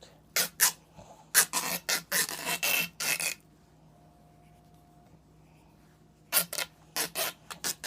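Cloth hockey tape being pulled off the roll and wound around the knob of a hockey stick: short raspy peeling bursts, with a pause of about three seconds in the middle.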